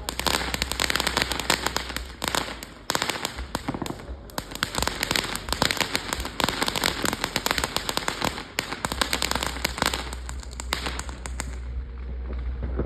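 A string of firecrackers going off in dense, rapid crackling pops, which die away near the end.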